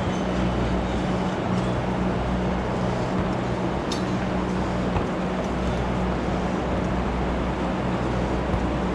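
An engine running steadily with an even low hum, and a single small click about four seconds in.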